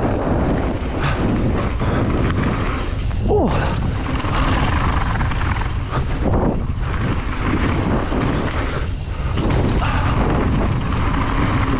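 Wind rushing over a ride-along camera's microphone while a downhill mountain bike rattles and its tyres run over a wet, rough trail, with a steady low rumble and scattered knocks. There is a brief falling squeal about three seconds in.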